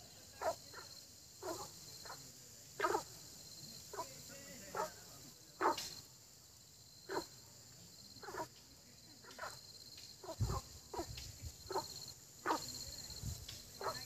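Frogs croaking in a flooded field: short single 'ộp' calls from several frogs, about one a second and coming closer together near the end, over a faint steady high-pitched hum.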